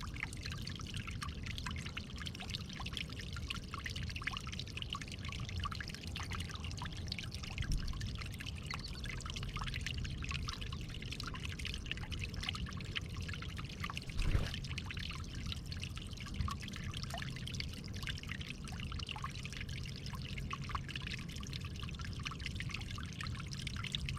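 Water trickling and splashing steadily, with a single dull knock about fourteen seconds in.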